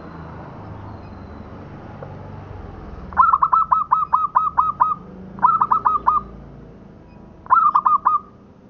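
Zebra dove (local Indonesian perkutut) cooing in three runs of quick, clipped repeated notes: a run of about ten notes a few seconds in, then two shorter runs of four or five notes.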